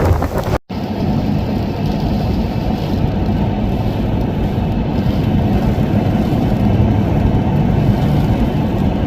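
Steady low rumble of a motor vehicle on the move, starting after an abrupt cut about half a second in.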